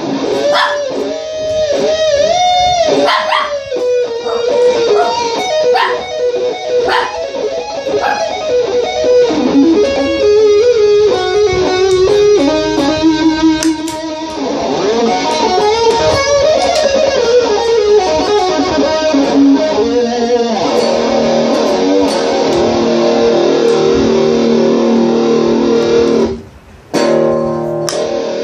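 Electric guitar played through a chain of Boss effect pedals (Metal Zone MT-2, Super Chorus CH-1, Digital Delay DD-3), recorded on a mobile phone. It opens with bent, wavering single notes and a run of lead notes, then moves to held, repeated chords in the second half, cutting out briefly near the end.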